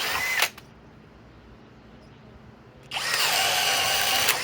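Cordless brushless hammer drill (Master Force Boost) boring into wood with a spade bit: a half-second run that stops abruptly, as its overload cutout trips under load. About three seconds in, it starts again and runs steadily with a motor whine.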